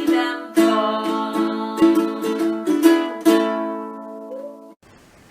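Ukulele strumming chords to end a children's song, with a last chord left to ring and fade before it cuts off near the end.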